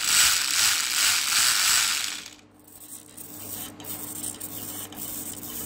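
Small hobby-grade electric motor of a toy car converted to radio control, run up from the transmitter and driving its 3D-printed plastic gearbox with the wheels spinning free. It makes a loud whirring rush for about two seconds and then stops suddenly. After that there are only a few faint clicks.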